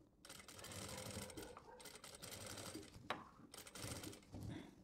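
Industrial flatbed sewing machine running quietly, stitching a collar band onto a kurta neckline, with a single click about three seconds in and a brief let-up just after.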